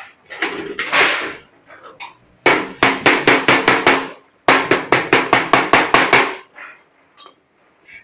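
A hammer striking the edge of a galvanized steel sheet-metal duct fitting in two quick runs of blows, about five a second. A low ring from the sheet carries under the strikes.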